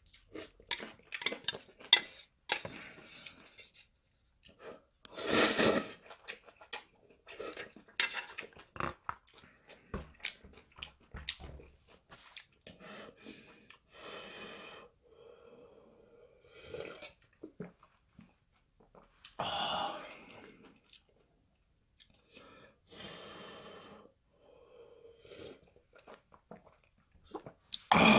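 A person eating instant ramyun close to the microphone: noodles slurped in a few loud bursts, the last at the very end, between chewing, breathing and utensils clicking against the dish.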